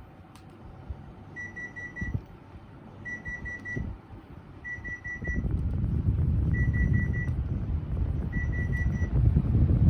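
Electronic beeping: quick runs of about four short high beeps, repeating about every second and a half. From about five seconds in, a loud low rushing noise of moving air sets in under the beeps.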